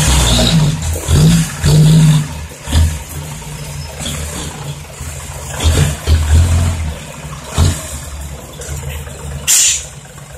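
Isuzu Deca dump truck's diesel engine running under load as the truck manoeuvres, revving up in short bursts again and again. A short sharp hiss of air comes near the end.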